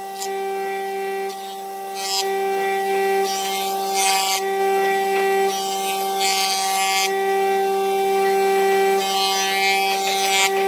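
Jointer running with a steady motor whine while its cutterhead planes a board pushed across it; a hissing rush of cutting swells every two to three seconds as the board passes over the knives.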